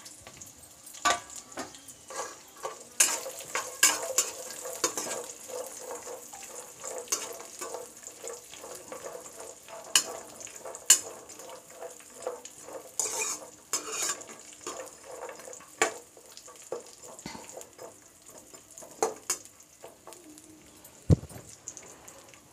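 Cashews, almonds and raisins frying in ghee in a non-stick kadai, a steady faint high sizzle under the irregular clicks and scrapes of a steel spoon stirring them against the pan. The stirring stops near the end with one dull knock.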